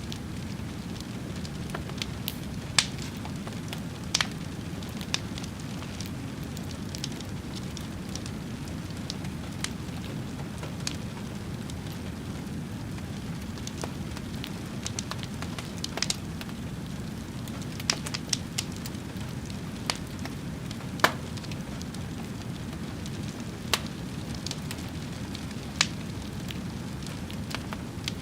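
Fire burning with a steady low rumble and irregular sharp crackles and pops every second or two.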